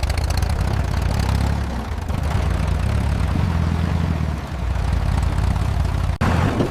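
An engine running steadily at a low pitch, which cuts off suddenly near the end.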